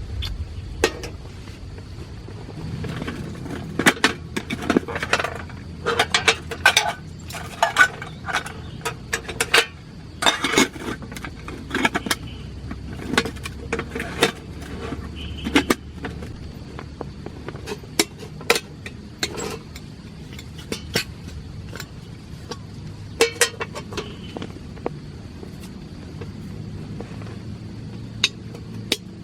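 Irregular clinks and knocks of small metal items, such as cookware or utensils, being handled, busiest in the first half, over a steady low background noise.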